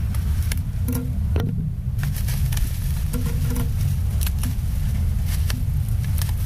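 Scissors snipping and a black plastic bag crinkling as it is cut open, heard as scattered short clicks and rustles, over a loud, steady low rumble.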